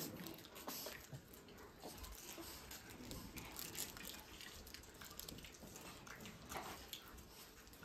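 Faint room noise of people sitting quietly in a hall: soft rustling, shuffling and scattered small clicks and knocks, with no steady source.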